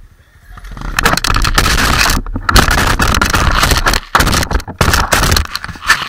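Loud rubbing and scraping on the camera's microphone as the camera is handled and swung around, in rough noisy stretches that cut off abruptly a few times.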